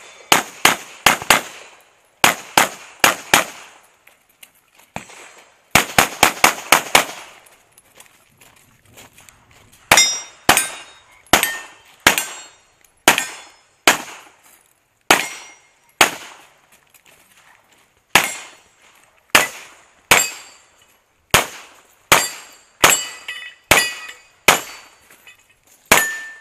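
CZ Shadow 2 9mm pistol fired in fast strings: quick bursts of four to six shots in the first seven seconds, then singles and doubles spaced about half a second to a second apart. Several of the later shots are followed by a short ringing tone.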